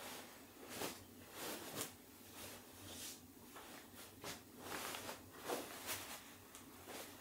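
Duvet and sheets rustling in a string of soft, irregular swishes as a person stirs in bed and gets up.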